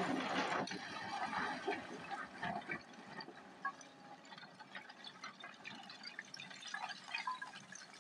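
Hyundai 210 excavator bucket scooping into a pile of broken stone: a loud scraping crash at the start, then loose rocks clattering and trickling down in many small knocks as the load is lifted.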